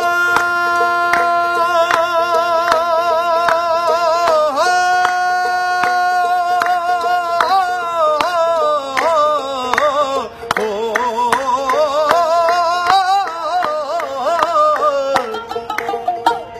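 A man singing long, drawn-out wordless notes with strong vibrato in Punjabi folk style, the line later turning into falling ornamented runs. Under the voice, a tumbi plays steady, sharp plucked strokes.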